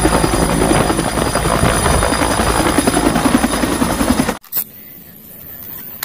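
Two-bladed military helicopter of the Bell UH-1 Huey type flying low and close: fast, steady rotor-blade beating over turbine noise. It cuts off abruptly about four seconds in, leaving only faint background.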